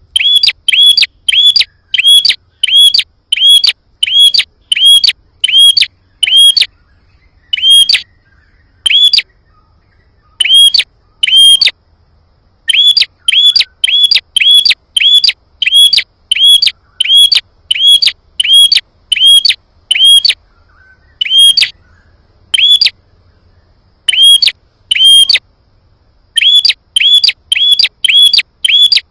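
Prinia (prenjak) calling: a loud, sharp chirp repeated about twice a second in long runs, broken by a few pauses of about a second. It is a recorded lure call, played to make prinias answer.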